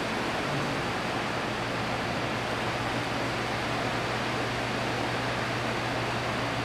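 Electric pedestal fan running: a steady, even rush of air with a low steady hum beneath it.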